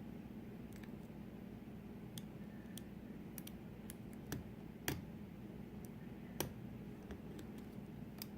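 Lock pick and tension wrench working the pins of a custom pin tumbler lock fitted with a trap pin: scattered small clicks at irregular intervals, a few louder ones about five and six and a half seconds in.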